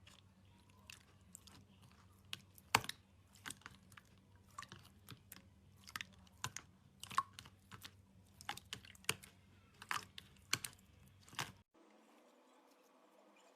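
Slime being squished, giving irregular sharp clicks and crackles, a few each second. They stop abruptly near the end, leaving only a faint steady hum.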